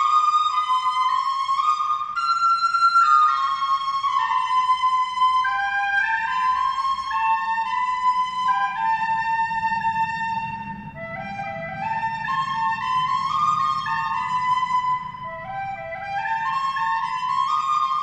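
Music: a single high, flute-like melody playing falling stepwise phrases, one after another.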